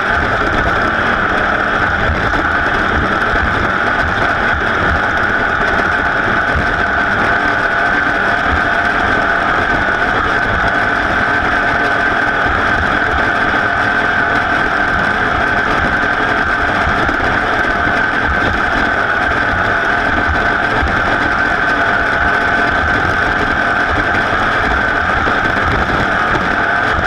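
Race vehicle's engine running flat out at a steady, unbroken pitch.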